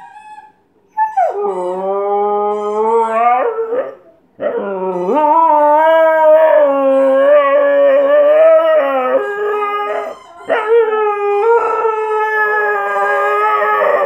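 Husky howling: three long howls with short breaks between them, the pitch wavering up and down.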